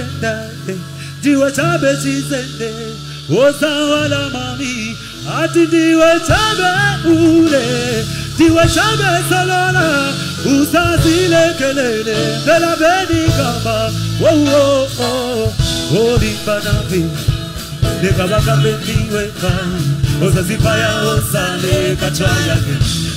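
Live band music: a male singer singing into a microphone over electric bass, electric guitar and keyboard. About two-thirds through, a quick, steady beat takes over the low end.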